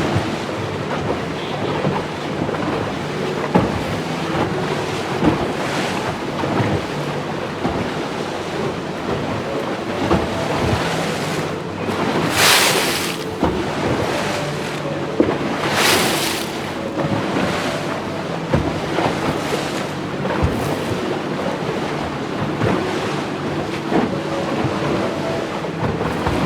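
Wind buffeting the microphone and water rushing past a moving boat, with a steady low hum underneath. Two louder rushes of noise come about twelve and sixteen seconds in.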